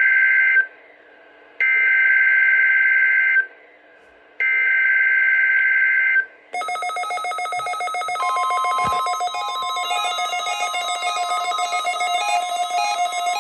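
NOAA Weather Radio EAS/SAME digital header: the end of one burst and then two more harsh two-tone data warbles, each almost two seconds long with about a second's gap between them, coding a required weekly test. Then, about six and a half seconds in, a repeating electronic tune starts, and a steady high tone joins it about two seconds later.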